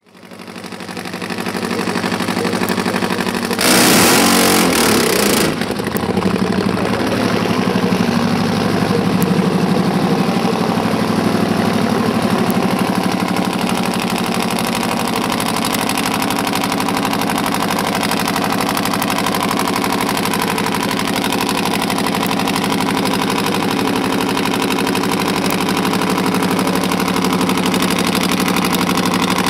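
Nitro-burning Super Twin Top Fuel Harley-Davidson V-twin drag bike engine idling steadily, with a brief loud blast about four seconds in.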